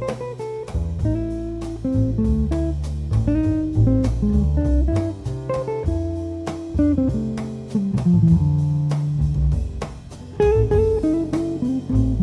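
Jazz trio of electric guitar, double bass and drums playing a slow tune. The guitar plays the melody over a walking double-bass line, with the drums keeping a steady beat of light strokes.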